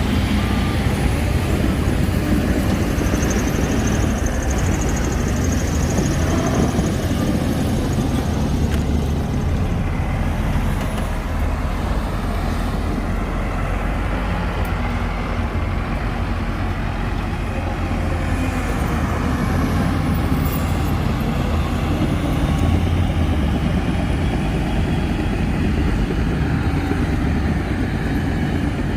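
Diesel engines of heavy earthmoving machinery running steadily, a deep continuous rumble with no pauses.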